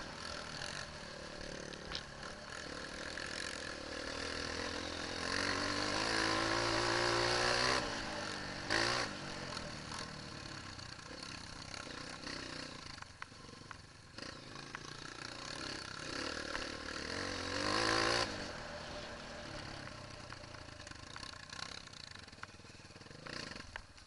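Onboard sound of a trail dirt bike's engine riding a rough dirt track, revving up in a long pull about five to eight seconds in and again near eighteen seconds, with knocks and rattles from the bike over the ruts. It eases off near the end as the bike slows.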